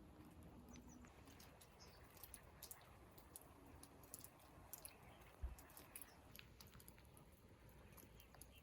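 Near silence with faint, scattered clicks and taps, and one soft low thump about five and a half seconds in.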